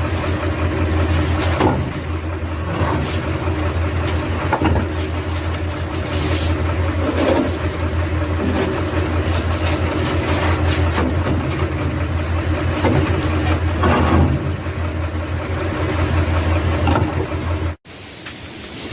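Truck engine idling steadily, with scattered knocks and clatter as concrete building blocks are unloaded and stacked. The engine sound drops away suddenly near the end.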